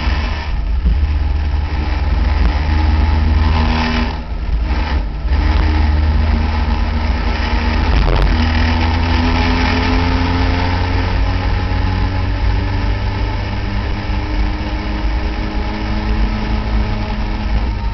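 Caterham Seven racing car's engine heard from the cockpit, pulling hard and rising in pitch as it accelerates. Brief dips as the driver lifts or changes gear come about four and five seconds in and again about eight seconds in, with steady wind buffeting on the open-cockpit microphone underneath.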